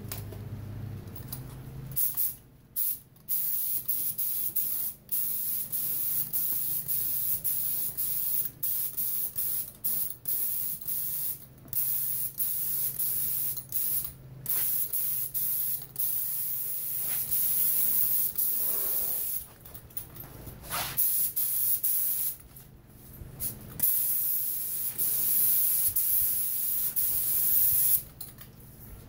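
Gravity-feed air spray gun hissing as it sprays clear coat, in long stretches with several short breaks where the trigger is let off. A low steady hum runs underneath.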